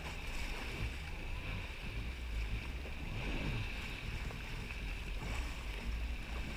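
Yamaha jet ski running steadily under way, its engine rumble mixed with water splashing along the hull.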